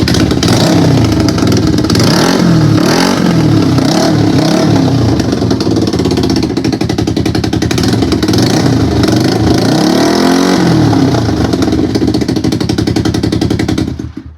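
Motorcycle engine running and revving, its pitch rising and falling several times in the first few seconds and once more later, then fading out at the end.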